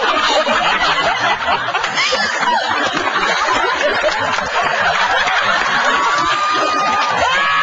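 Studio audience laughing, many voices at once, sustained throughout.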